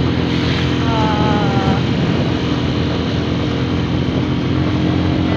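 Motorcycle engine running steadily while riding, over a constant rush of wind and road noise.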